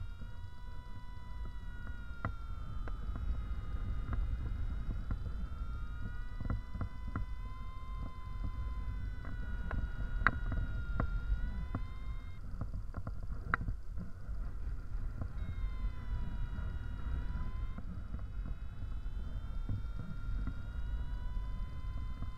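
Wind rushing over the microphone in flight under a paraglider, with a steady whistling tone that slowly slides up and down in pitch and drops out for a few seconds twice, and a few sharp clicks.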